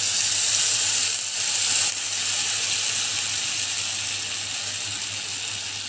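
Rice-flour chilla batter sizzling as it is poured from a ladle onto a hot, oiled nonstick pan. The hiss is strongest in the first two seconds, then slowly dies down as the batter spreads and sets.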